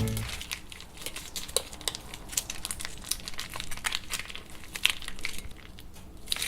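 Irregular crinkling and crackling, a dense run of small sharp clicks.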